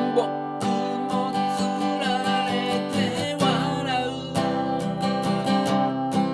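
Music: an acoustic guitar strummed in a steady rhythm.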